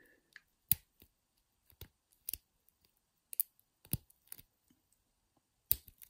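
Sharp, irregular metallic clicks of a hook pick and tension wrench working in the keyway of an old, worn Triangle padlock, about a dozen light clicks scattered through, the loudest just under a second in and near the end.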